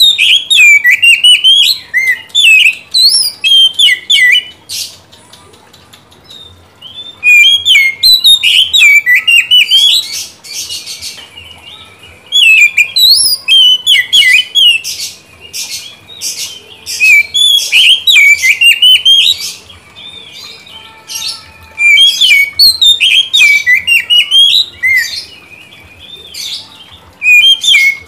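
Oriental magpie-robin (kacer) singing loudly in bursts of quick whistled notes and sweeping trills, with pauses of a second or two between bursts. In the middle it sings a long run of fast, rattling repeated notes.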